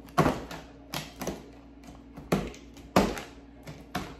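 Knife chopping a bar of dark chocolate on a cutting board: a series of sharp, irregularly spaced chops, the loudest about three seconds in.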